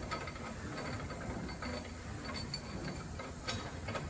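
Ratchet wrench clicking in a quick, irregular run as it turns the bolt of a bush-fitting tool, drawing a bush into a truck brake caliper.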